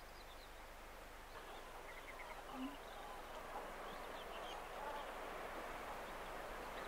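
A flock of birds calling faintly in scattered short calls over a soft, steady wash of wind and water.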